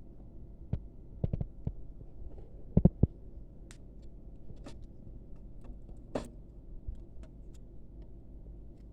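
Scattered clicks and light knocks from a car head unit being handled and fitted into a bench test case, over a steady low hum. The loudest is a quick cluster of knocks about three seconds in.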